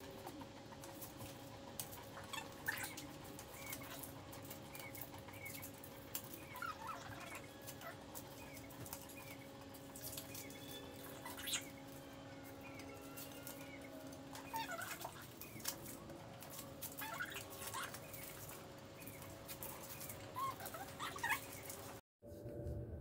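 Green painter's tape being peeled off a painted wooden chair seat and crumpled by hand: soft crackles and small rips, over a faint steady hum.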